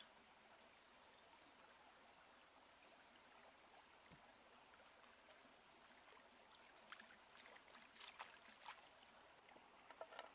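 Faint, steady trickle of a shallow stream, with small splashes and clicks from about six seconds in as hands rinse a bunch of red chillies in the water.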